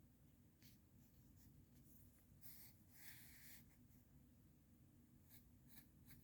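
Faint scratching of a drawing tool on paper: a series of short strokes, with a longer, louder stroke about two and a half to three and a half seconds in.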